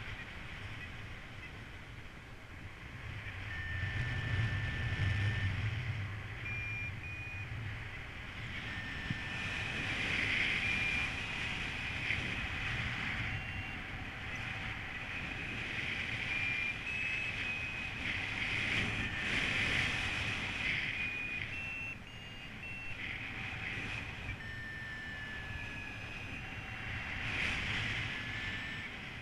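Paragliding variometer beeping, its tone stepping up and down in pitch as it signals the climb rate in lift. Under it, steady wind rushes over the microphone and swells at times.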